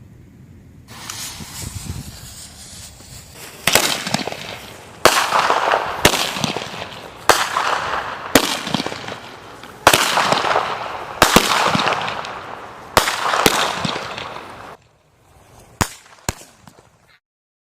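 Black Mamba 16-shot firework cake going off. A fuse hisses for a couple of seconds, then shots fire one after another about a second apart, each a sharp bang trailed by a hissing crackle. The volley ends suddenly, and a few faint pops follow near the end.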